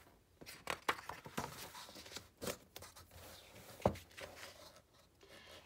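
Pages of a picture book being turned by hand: paper rustling and sliding, with a sharp tap a little before four seconds in.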